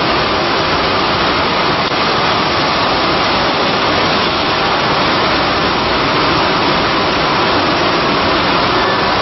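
Cincinnati Milacron Model AM 5-axis CNC router running, a steady, loud rushing machine noise with a faint steady whine in it.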